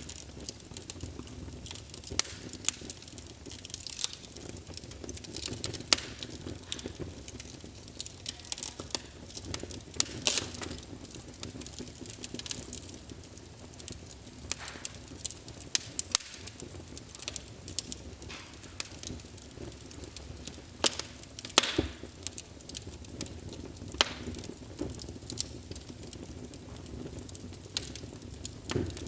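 Wood fire burning in a fireplace: irregular sharp pops and crackles of the burning logs, a few much louder than the rest, over a soft steady hiss of the flames.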